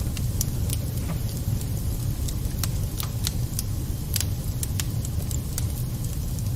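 Wood fire burning in a fireplace: sharp crackles and pops at irregular moments, a few each second, over a steady low rumble of the flames.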